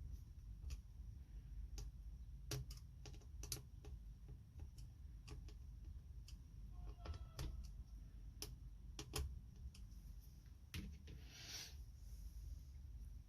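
Irregular light clicks and taps of small hard parts being handled during work on a laptop, with a brief scraping rustle near the end.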